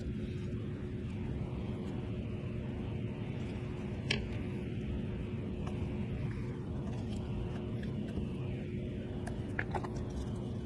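Steady low hum, with a sharp click about four seconds in and a few more near the end as small rare-earth magnets are handled and set into an MDF board.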